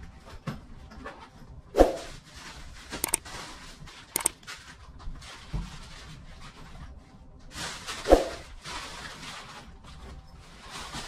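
Packing noises: a backpack and belongings being handled, with rustling and a few clicks, and two sharp knocks about two seconds in and again about eight seconds in.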